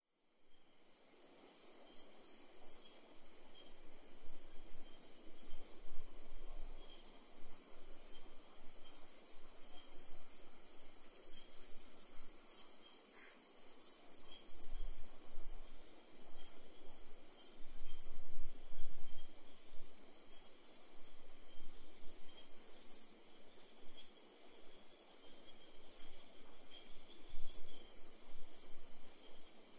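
A chorus of crickets chirping steadily, high-pitched and pulsing, over a soft rustling noise that swells and fades.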